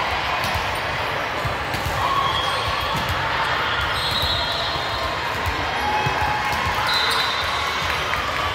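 Indoor volleyball gym din: many voices talking and calling out, with balls bouncing and thudding on the hardwood floor throughout and a few short high squeaks.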